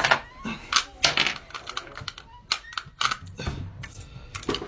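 Irregular sharp plastic clicks and clatter as a wireless computer mouse's battery cover is opened and its batteries are changed.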